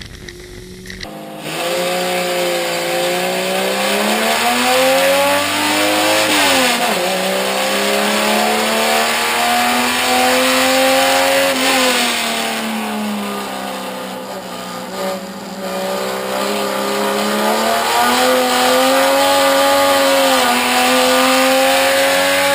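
Race car engine heard from inside the cabin at full throttle, starting about a second in. The pitch climbs through the revs and drops sharply at an upshift twice, holds steady for a stretch in the middle, then climbs again to another shift at the end.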